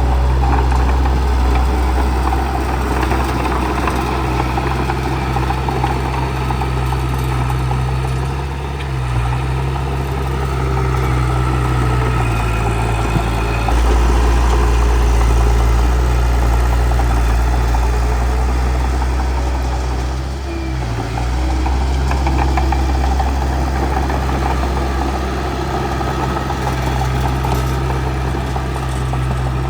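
Bulldozer's diesel engine running steadily, its note shifting several times as it works, most clearly about 12 to 14 seconds in and again just after 20 seconds.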